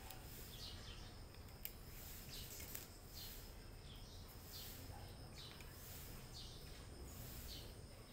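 Faint bird chirps, short falling notes repeated about once a second, over a low steady background noise, with a couple of soft clicks.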